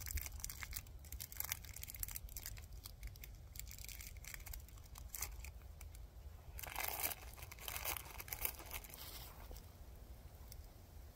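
Plastic snack wrapper crinkling and tearing in gloved hands in short crackles, with a louder burst of crinkling about seven seconds in.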